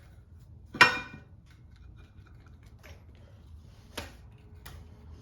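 Chromoly steel flywheel clanking against the crankshaft hub as it is worked onto a tight fit. One loud ringing metal clank about a second in, then a few lighter metal clicks.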